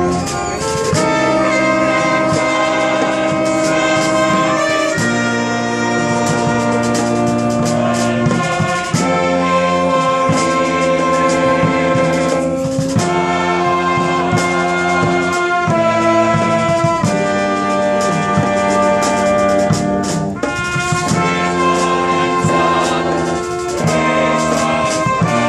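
Brass band with sousaphone, trumpets and saxophones playing slow held chords that change every few seconds.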